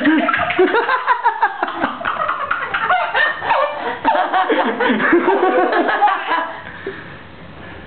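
A woman and a small boy laughing hard together in overlapping fits, which die down about six and a half seconds in.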